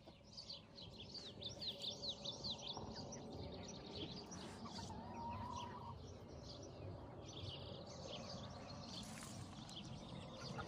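Small birds chirping rapidly and repeatedly in clusters of quick, high, falling chirps, over a steady low background rumble.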